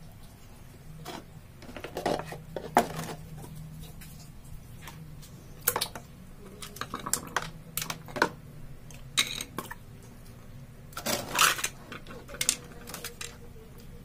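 Disassembled plastic faucet parts being handled: irregular clicks and taps every second or two, with a longer clatter about eleven seconds in.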